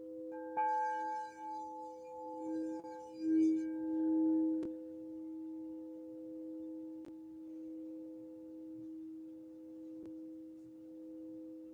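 Crystal singing bowls ringing with two steady, sustained tones, one low and one a little higher. In the first few seconds brighter, higher tones ring over them and the low tone swells, then the two tones hold evenly.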